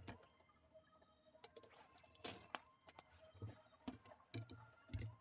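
Scattered light clinks and taps of small hard parts being handled and set down, about half a dozen in all, the loudest a little past two seconds in.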